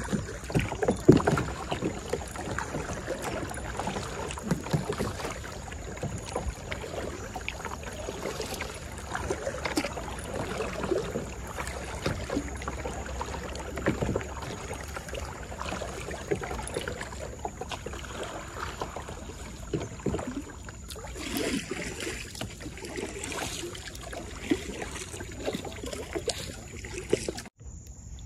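Kayak paddles dipping and splashing in the water, with irregular knocks and splashes from the paddling.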